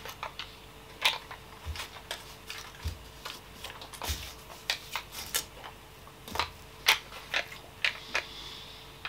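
Paper and plastic candy wrappers crinkling and clicking in the hands as a small box of wrapped chewing-candy sticks is handled, in irregular sharp crackles with a few soft knocks.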